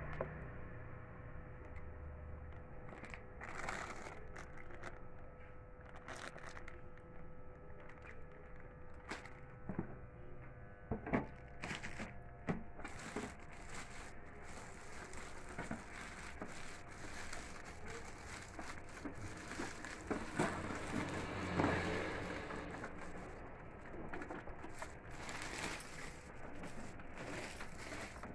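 Plastic packaging crinkling and rustling as it is handled, broken by irregular knocks and bumps as a boxed printer and its bagged accessories are moved about.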